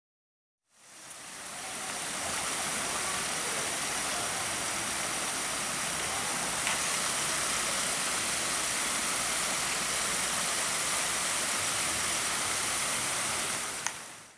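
Small garden waterfall, water splashing over rocks in a steady, even rush that fades in over the first second or two and fades out near the end. A light click comes just before the fade-out.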